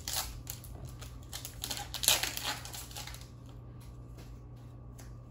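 Foil booster-pack wrapper crinkling as a trading-card pack is torn open and the cards are pulled out: a run of sharp crackles, loudest about two seconds in, that dies down after about three seconds to a few faint clicks of the cards being handled.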